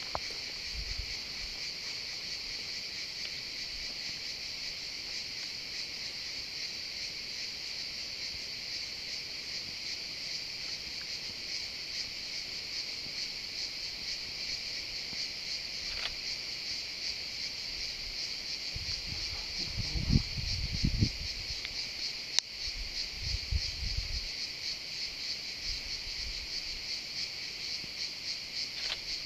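Cicadas singing in a steady, continuous chorus, a fast pulsing high buzz. About two-thirds of the way through, a few short low rumbles on the microphone stand out as the loudest moments.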